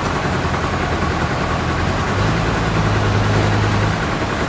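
A heavy engine running steadily under a wash of machinery noise. Its low hum strengthens from about halfway through and eases off again near the end.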